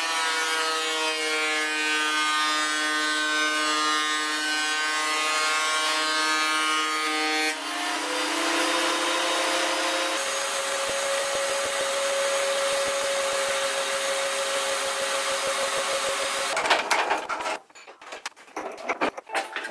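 Benchtop thickness planer running and planing mahogany: a steady motor whine mixed with the hiss of the cutters taking wood, its tone shifting twice. Near the end it stops, leaving a few scattered knocks and clatters.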